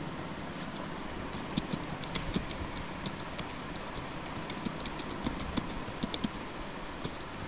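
Computer keyboard typing: a run of short, irregular key clicks over a steady background noise.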